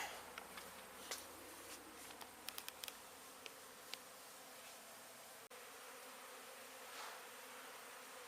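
Honey bees buzzing as a faint, steady hum from the colony being worked, with a few small clicks in between.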